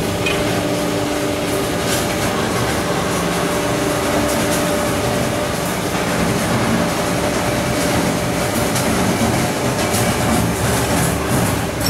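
Steady mechanical drone with a few steady tones and faint scattered clicks from the drive of a crane's clamshell grab bucket, working as its two steel jaws slowly close.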